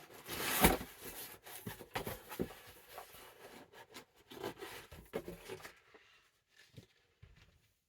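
Mail packaging being handled and torn open by hand: irregular rustling, crinkling and tearing, loudest about half a second in, then petering out after about six seconds.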